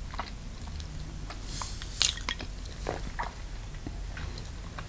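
Close-miked eating sounds: chewing and biting into sauced chicken, with scattered wet smacks and clicks. The loudest smack comes about two seconds in.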